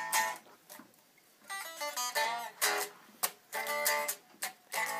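Guitar playing a rock riff: short, sharply struck chords separated by brief gaps, with a quick run of notes in the middle.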